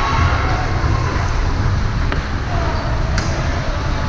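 Steady low rumble of background noise at a game, with faint distant voices and one sharp knock about three seconds in.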